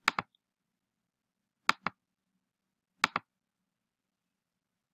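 Computer mouse button clicked in quick pairs: three double-clicks about a second and a half apart.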